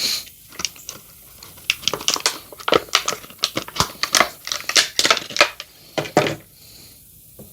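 Packaging being handled, crinkling and crackling in an irregular run of short rustles and clicks that dies away about six seconds in.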